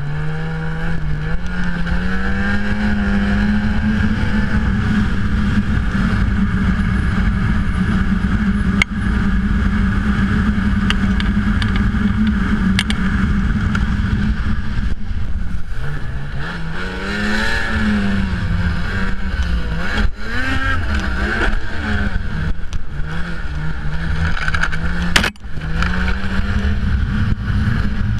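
Ski-Doo XRS snowmobile engine under way across snow. It holds high, steady revs for the first half, then rises and falls again and again with the throttle through the second half. It dips sharply for an instant near the end.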